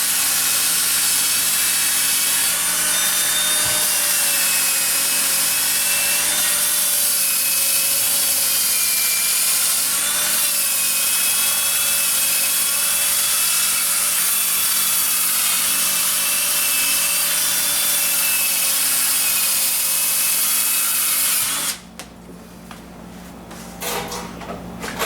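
Cordless drill spinning a wire wheel against the sheet metal of a dented Harley Sportster part, scrubbing off the finish that sandpaper left behind before lead filling. It is a steady, harsh scrubbing with a motor whine that wavers in pitch as the pressure changes, and it stops suddenly near the end.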